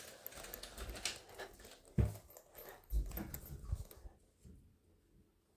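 Rustling and knocking from a phone being handled and carried about, with two dull thumps about two and three seconds in, going quiet near the end.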